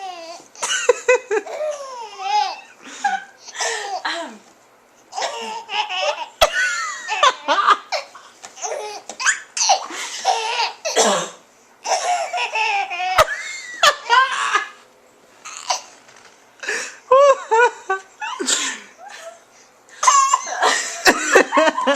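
A baby laughing hard in about six bouts of belly laughs and giggles with short pauses between. The laughter is his reaction to his mother's coughing.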